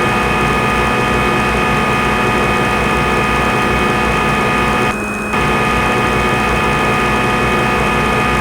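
Simulated CNC lathe running during an automatic machining cycle: a steady machine hum with several high whine tones. It dips briefly about five seconds in and again near the end.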